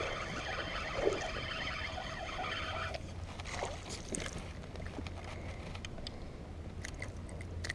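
Small boat's motor running with a steady whine over a low hum. The whine cuts off suddenly about three seconds in, leaving the low hum and a few light clicks.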